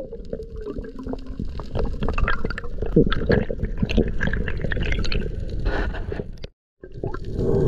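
Underwater water noise: water swishing and gurgling around the camera with a low rumble and many scattered clicks and pops. The sound drops out for a moment near the end.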